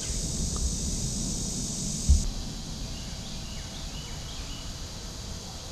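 Steady high-pitched drone of insects, which cuts off about two seconds in, over a low rumble; a brief low bump comes just as the drone stops.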